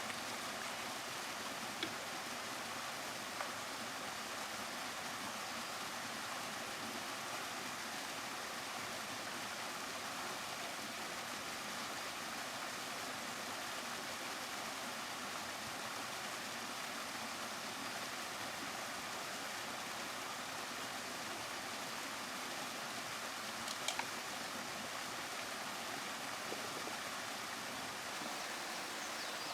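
Steady rush of flowing river water, with a few brief sharp clicks, one about two seconds in, another soon after and one near the end.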